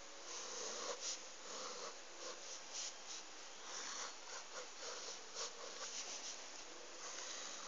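Felt-tip marker scratching across paper in short, irregular strokes as a drawing is sketched.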